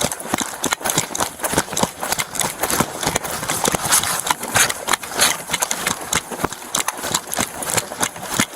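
Running footsteps: a quick, uneven string of heavy footfalls, heard close up from a body-worn camera on the officer giving chase on foot.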